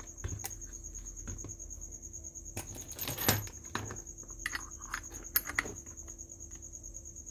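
Handling noise from the plastic soldering-station housing, its cable and the iron stand: scattered clicks and knocks, a short rustle about three seconds in and a sharper click a little after five seconds. A steady high-pitched whine runs underneath.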